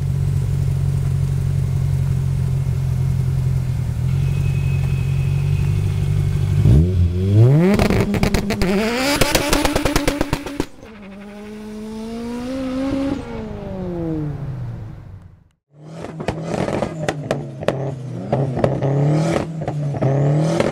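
Honda S2000 engine held at steady high revs, then revving up as the rear tyres spin and screech in a burnout, its pitch rising and falling as the car pulls away. Then another S2000 engine is blipped repeatedly, with sharp exhaust pops and crackles of backfire between the revs.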